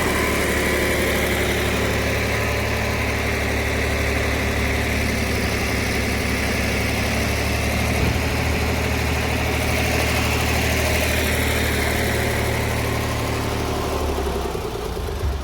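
Heavy diesel engine running steadily at a constant speed, with a low hum and a steady higher hiss on top. The hum eases slightly near the end.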